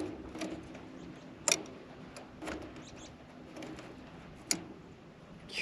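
A few sharp clicks about a second apart, from cutting zip ties and handling the small plastic parts and wiring of an irrigation pivot's control box, with a faint bird chirp.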